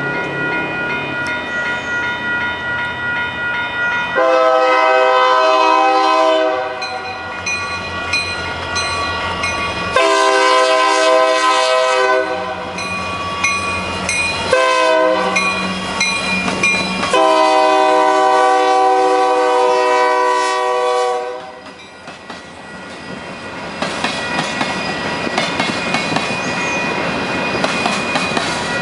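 Union Pacific locomotive's air horn sounding the grade-crossing signal: two long blasts, a short one, then a final long one, a chord of several notes. After the horn stops, the train's cars clatter past with a rhythmic clickety-clack.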